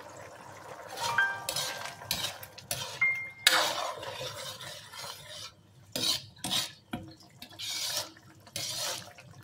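Metal ladle stirring a thick simmering beef meat sauce in a pan, a run of uneven scraping, sloshing strokes that starts about a second in.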